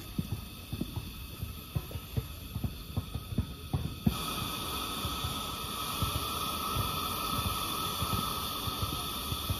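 Coleman 502 white-gas single-burner stove hissing under a stainless cup of zenzai, the thick red-bean soup bubbling with irregular low pops. About four seconds in, the burner hiss turns abruptly louder and steady.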